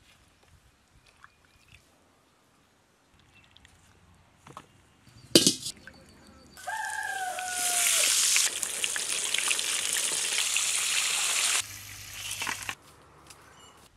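A sharp knock or splash about five seconds in, then a whole flour-coated chicken deep-frying in hot oil: loud, steady sizzling for about five seconds that drops off suddenly.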